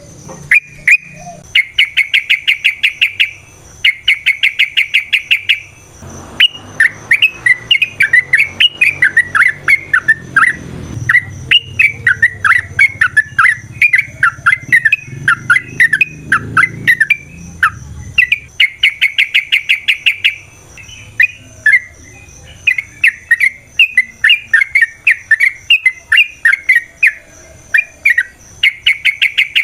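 Yellow-vented bulbul (trucukan) singing in a long, unbroken run: bubbly, varied chattering phrases, broken four times by about two-second bursts of fast, evenly repeated notes.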